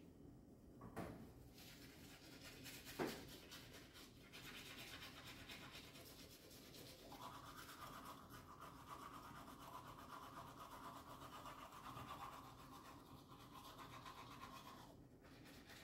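Quiet scrubbing of a toothbrush on teeth, a fast repeated scratching, with a couple of small knocks in the first few seconds.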